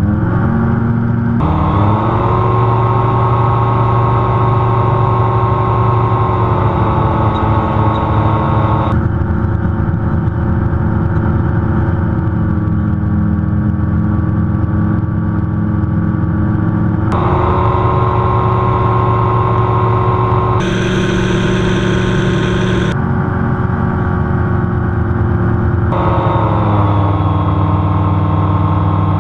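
Xenon gyroplane's engine and propeller running steadily in flight, a loud drone with wind noise. The tone jumps abruptly several times, and the engine pitch rises slightly near the start and eases down near the end.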